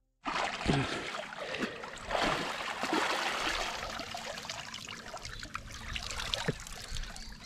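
Water trickling and splashing, with a louder rush about two to three seconds in.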